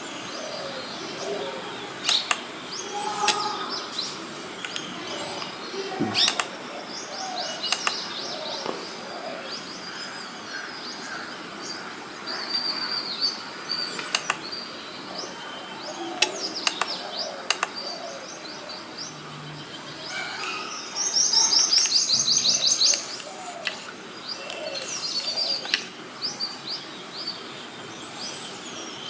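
Birds chirping and calling, short high chirps again and again, with a fast high trill of rapidly repeated notes lasting about two seconds about two-thirds of the way through. Sharp clicks come every few seconds.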